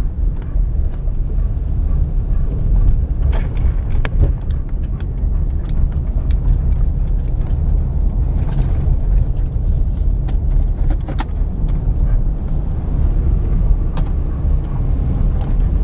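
Inside a car driving slowly on a rough dirt road: a steady low rumble of engine and tyres, with a few scattered knocks and clicks from the bumpy surface.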